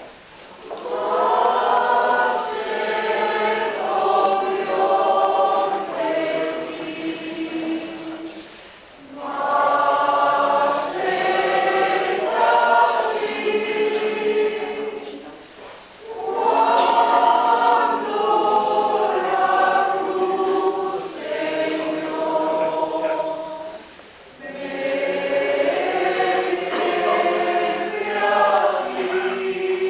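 Mixed choir of men's and women's voices singing in long sustained phrases, four of them, each broken off by a short pause for breath.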